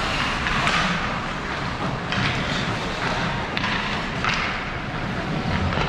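Ice hockey play in an arena: skates scraping the ice and sticks and puck knocking, heard as several short sharp scrapes and knocks over a steady rink noise.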